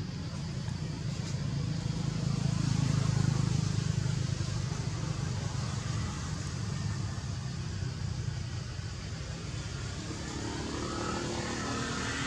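Low rumble of a motor vehicle, loudest about three seconds in.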